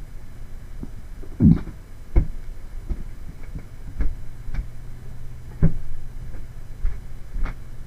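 About eight soft, irregularly spaced knocks and clicks over a low steady hum.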